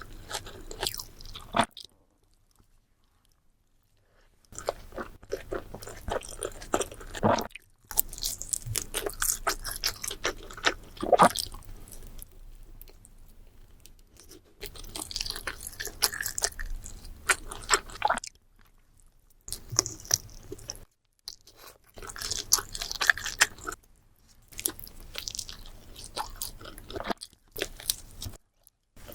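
Close-miked eating of a burrito: bites and chewing in bursts of quick clicky mouth sounds, broken by several short pauses.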